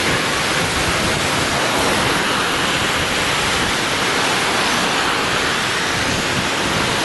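Heavy rain falling steadily: a dense, even hiss with no siren or engine note standing out.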